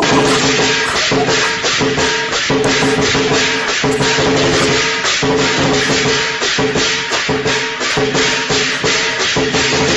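Background music with a fast, steady percussion beat over sustained tones.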